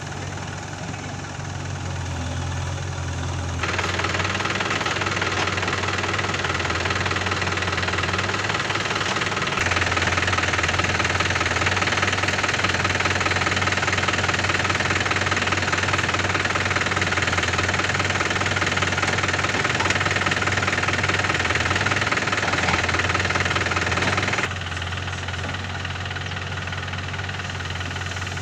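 Diesel engines of a JCB 3DX backhoe loader and an HMT 3522 tractor running steadily while the backhoe digs and loads soil. The engine sound gets louder abruptly a few seconds in, louder again about a third of the way through, and drops back abruptly near the end.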